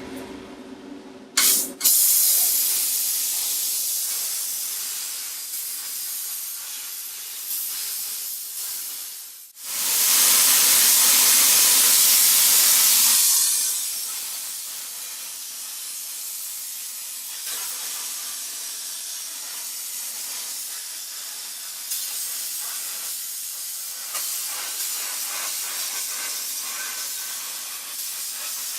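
Plasma cutter hissing as it cuts steel. It starts suddenly, stops briefly about nine and a half seconds in, is loudest for the next few seconds, then settles to a quieter steady hiss.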